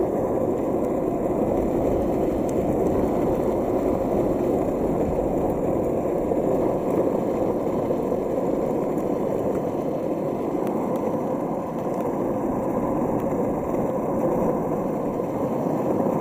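Landyachtz cruiser longboard's wheels rolling steadily over asphalt, a continuous rumble with no break.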